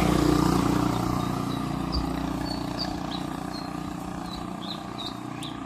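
A vehicle engine running steadily and slowly fading away, with a few short high chirps over it.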